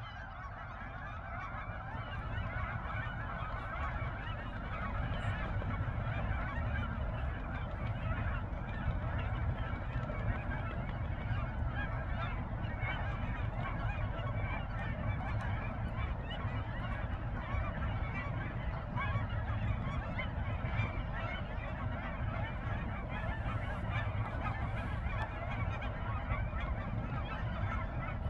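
Hundreds of geese honking at once, their calls overlapping into a dense, unbroken chorus over a low rumble.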